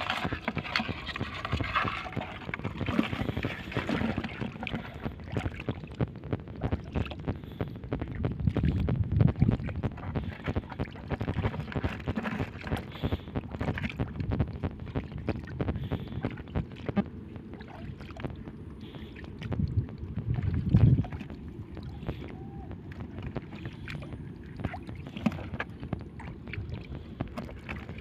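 Shallow seawater sloshing and splashing around someone wading through it, with frequent small clicks and knocks. The splashing surges louder twice, about a third of the way in and again about three quarters of the way in.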